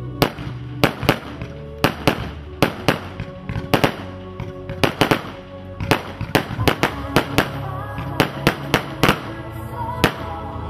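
Fireworks cake (Black Bomber) firing a rapid, irregular string of aerial bursts, sharp bangs coming two to three a second, over background music.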